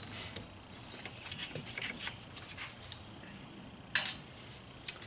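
Light clicks and clinks of fuel line connectors being handled at a fuel filter, with one louder click about four seconds in.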